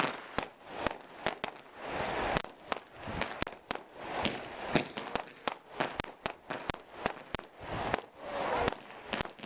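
Fireworks display: aerial shells bursting with many sharp bangs in quick, irregular succession.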